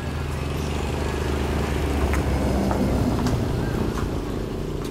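A motor engine running steadily with a low hum, with a few faint clicks over it.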